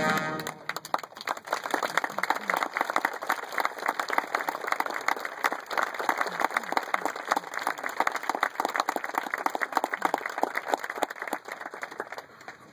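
A brass band's last chord cuts off about half a second in, and an audience then applauds with steady clapping that dies away near the end.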